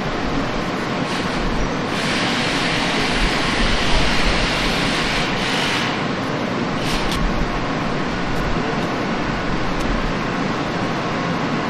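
Car assembly plant machinery running with a steady low rumble. A louder hiss comes in about two seconds in and lasts about four seconds, with a shorter one about seven seconds in.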